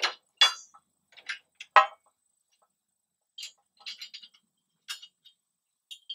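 Metal clanks and clinks of three-point hitch pins and the steel auger frame being worked loose by hand: three loud knocks in the first two seconds, then a scatter of lighter, ringing clicks.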